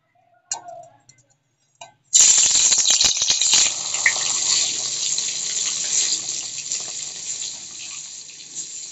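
Marinated rohu fish pieces going into hot oil in a steel kadhai: two short knocks, then about two seconds in a sudden loud sizzle with crackling that slowly dies down as the fish fries.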